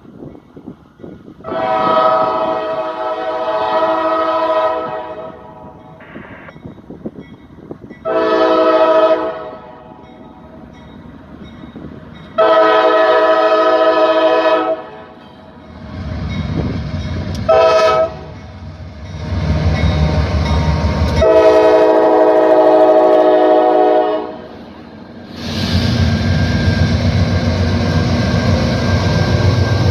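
Rebuilt Norfolk Southern GE AC4400 locomotive's air horn sounding a grade-crossing signal: a multi-note chord blown five times, long, short, long, very short, then held about five seconds. The diesel locomotive's rumble builds under the later blasts and near the end the train passes loudly, horn silent.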